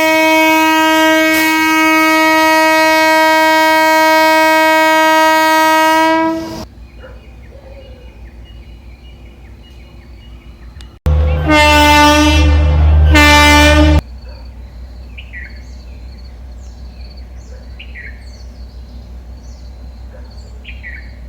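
Train horn sounding: one long steady blast for about six seconds, then two shorter blasts in quick succession about halfway through over a low rumble. Short high chirps are heard in the quieter stretches between the blasts.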